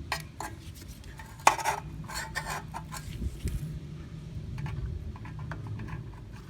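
Needle-nose pliers and a new nylon pull cord clicking, clinking and scraping against a lawnmower's recoil starter housing as the cord is threaded through. Scattered sharp clicks, the loudest about a second and a half in, over a steady low hum.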